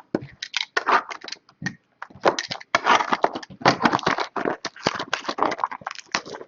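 Trading-card box packaging being torn open and handled: a run of irregular crackling, crinkling and scraping of wrapper and cardboard.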